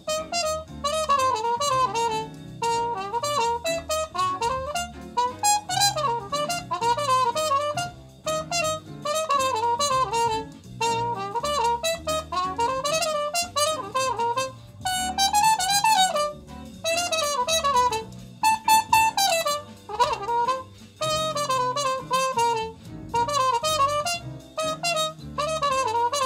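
Trumpet played through an unrestored Shastock Tonal Color cup mute: a melody of many short notes with a few falling slides.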